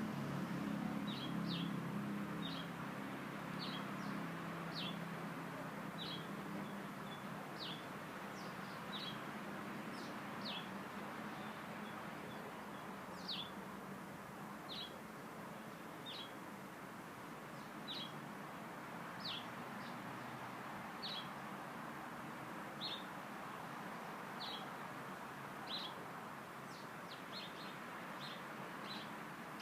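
A bird giving short, sharp chirps, each a quick downward sweep, repeated about once a second, some in quick pairs, over steady outdoor background noise.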